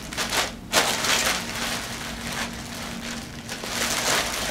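Clear plastic packaging bag crinkling and rustling as it is handled and opened, unevenly, with louder patches.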